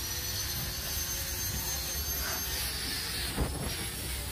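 Slipway cable winch driven by a six-cylinder Fuso diesel through a gearbox, running with a steady high-pitched whine over a low rumble while hauling a boat up the slipway. Near the end the whine drops in pitch and fades as the boat reaches the top, with a single knock.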